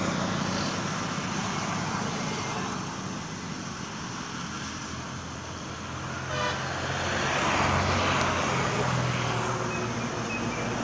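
Road traffic noise: vehicles running, with a low engine hum that grows louder about six seconds in.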